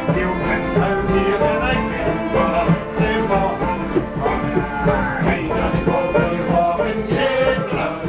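Traditional folk session music: a fiddle and an accordion playing a tune together with other acoustic instruments, continuously.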